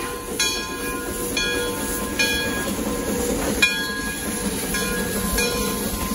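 Shay geared steam locomotive pulling slowly away, its bell ringing about once a second over the rumble and hiss of the running engine and its steam.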